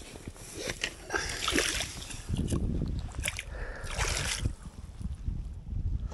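A landed pike splashing and sloshing in the shallow water at the bank while it is handled, in irregular bursts, with small clicks and rustles of handling.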